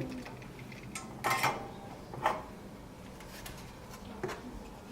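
Hand tools scraping and knocking on a refrigerator control board as a glued-down relay is worked loose: three short scrapes or taps, about a second, two seconds and four seconds in, over a low steady hum.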